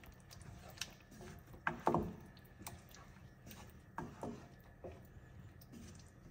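Wooden spatula stirring thick, creamy curry in a stainless steel pot: faint scrapes and soft knocks against the pan, the loudest about two seconds in.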